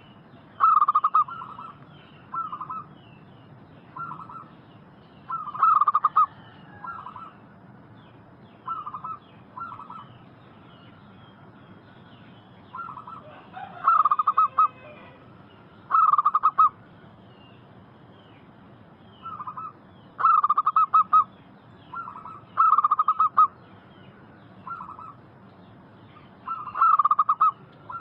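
Zebra doves cooing: short, rapid runs of staccato coo notes repeated every one to three seconds, some runs louder than others. Faint high chirps sound in the background.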